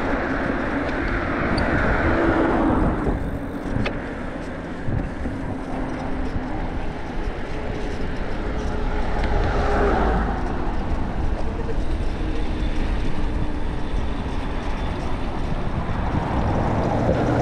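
Road traffic heard from a moving bicycle: cars pass, swelling and fading near the start and again about halfway through, over a steady low rumble of road noise.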